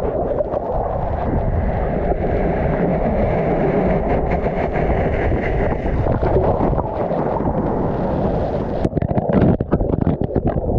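Breaking surf churning over a submerged action camera: a loud, steady, muffled rush of turbulent water and bubbles. Near the end come several sharp knocks as it is washed against rocks in the shallows.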